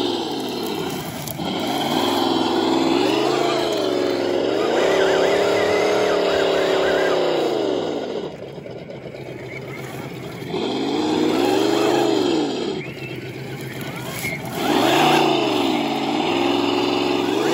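Radio-controlled scale crawler jeep (RocHobby Willys) running under throttle, its motor and drivetrain whine rising and falling in pitch with each surge of throttle, easing off twice as it works over a rock.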